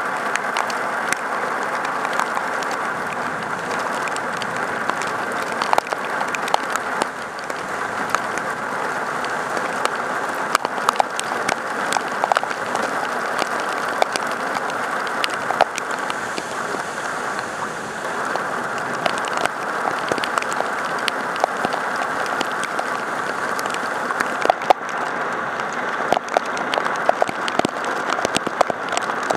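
Heavy rain pouring down in a steady hiss, with many sharp ticks of single drops striking close by.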